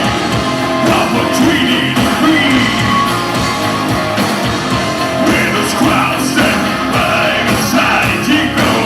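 A live rock band playing loudly, with a singer's voice over the band.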